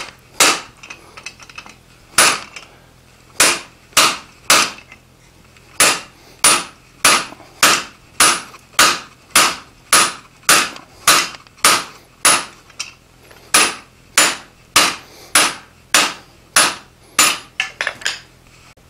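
Hand hammer striking the top die of a Smithing Magician guillotine tool on the anvil, cutting off a hot steel bar. The sharp metallic blows come about two a second with a couple of short pauses, and quicker ones follow near the end.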